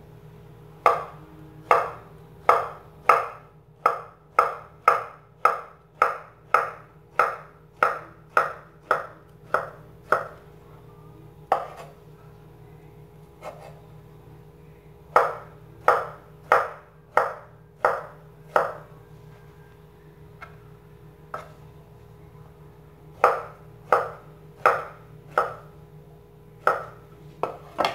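Cleaver chopping tempeh on a wooden cutting board: sharp knocks about two a second, each ringing briefly. A long run of knocks is followed by two shorter runs after pauses, over a faint steady hum.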